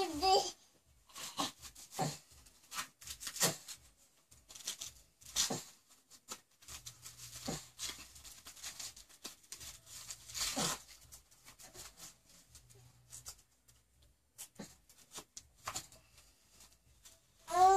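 Scattered rustling and short tearing sounds of a disposable diaper and wipes being handled during a diaper change, with a few louder rips.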